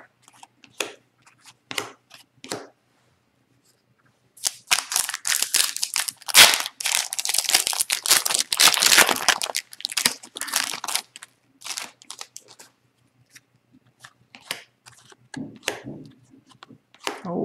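Shiny foil wrapper of an Upper Deck hockey card pack being torn open and crinkled, a loud dense crackle for several seconds starting about four seconds in. Short rustles of cards being handled come before and after.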